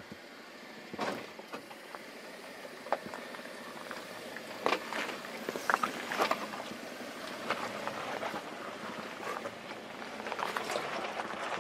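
Off-road tyres of a Jeep Wrangler Rubicon crunching slowly over wet rock and loose stones, with irregular sharp cracks and pops of grit and gravel under the tread, growing louder as the vehicle nears.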